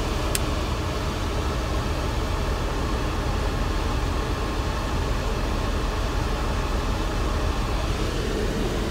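Mercedes W124's electric auxiliary cooling fans running on high speed in front of the AC condenser, a steady rush of air over the running engine. The fans were switched to high speed by hand because the car's own high-speed trigger does not work. A single click comes near the start.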